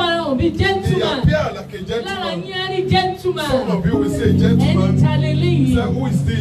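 A woman singing into a microphone over amplified instrumental backing, with sustained low bass notes coming in about four seconds in.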